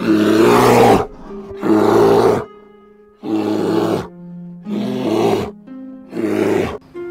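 Brown bear roaring five times, each harsh call lasting about a second, with short gaps between, over light background music.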